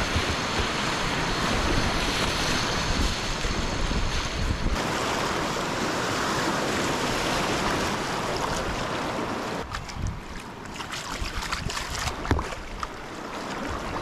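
Whitewater rushing around a kayak running a rapid, with wind buffeting the action camera's microphone. About ten seconds in the rush drops to a quieter churn broken by short paddle splashes as the boat reaches calmer water.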